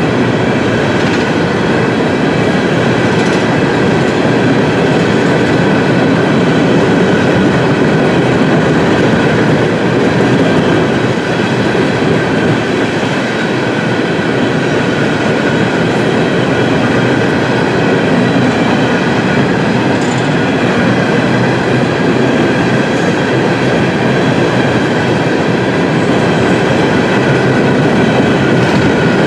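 Freight train of open-top hopper cars rolling past close by: a steady, loud rumble and clatter of wheels on the rails.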